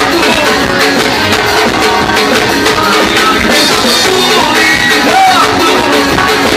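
Live band playing upbeat gospel axé music, with singing over the band.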